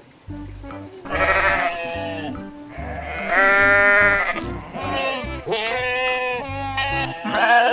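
About five long bleats from sheep or goats, one after another, with wavering pitch, over background music with a steady bass beat.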